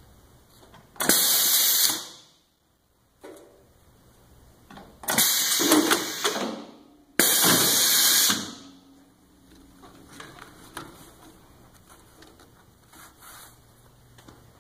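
Compressed-air hiss from the pneumatic cylinders of an Aline heavy-duty impulse bag sealer: three loud blasts of air, each about a second long, the first about a second in and the other two close together around five and seven seconds in.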